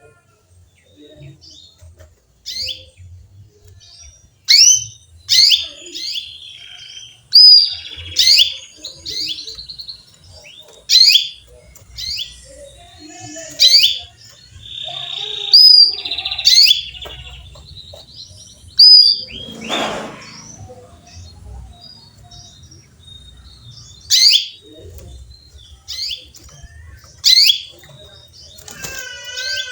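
Female canary calling a male, with short, sharp falling chirps repeated every second or two and a few brief trills between them. About twenty seconds in comes one louder, rougher sound.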